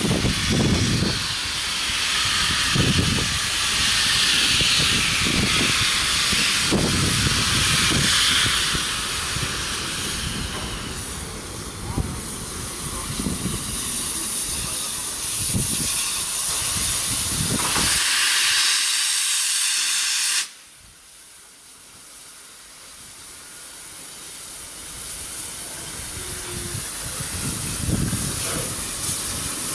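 Double-headed steam locomotives, led by DR class 50 No. 50 4073, moving slowly with loud steam hissing from the cylinders and uneven low chuffs. The hiss cuts off suddenly about two-thirds of the way through, leaving a much quieter rumble that builds again as the engines roll closer.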